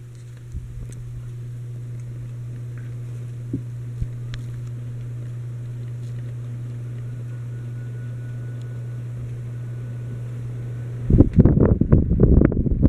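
Litex Vortex ceiling fan running with a steady low motor hum. Near the end its airflow buffets the microphone in loud, gusty rushes.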